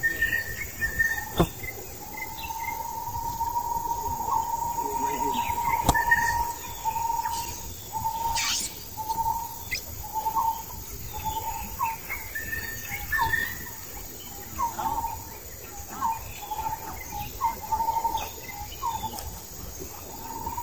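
Animal calls: a high, steady tone held for several seconds, which then breaks into short repeated notes about once a second, with two sharp clicks in the first few seconds.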